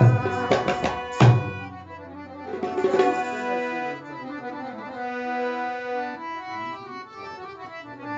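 Instrumental break in a Pashto folk song: a run of tabla strokes in the first second and a half and again about three seconds in, under a reed instrument playing a held melody that carries on alone after that.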